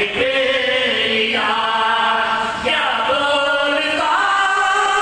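A man chanting in long held notes, the sung, melodic recitation of a majlis orator, with brief breaks between the notes.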